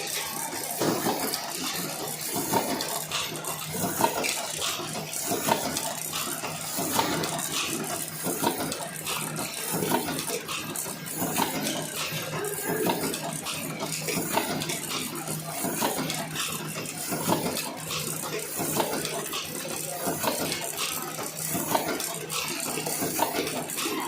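Automatic cartoning machine running: a continuous, rapid clatter of small mechanical clicks and knocks.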